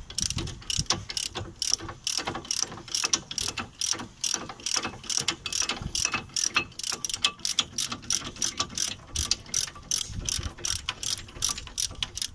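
3/8-inch drive ratchet with a 15mm socket clicking rapidly, about four clicks a second, as it is worked back and forth to unscrew a front brake caliper bridge bolt.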